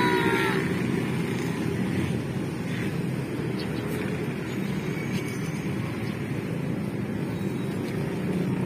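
Steady drone of road traffic, cars and motorcycles running along the street, with no distinct pass-by standing out.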